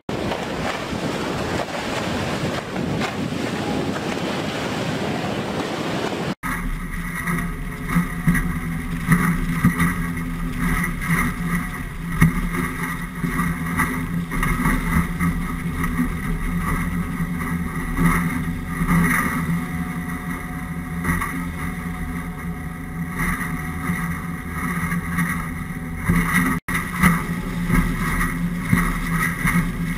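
Wind and rushing water for the first six seconds; then, from a cut, the steady drone of a Coast Guard 29-foot response boat's outboard engines heard from on board at speed, with irregular loud thumps and splashes as the hull meets the waves.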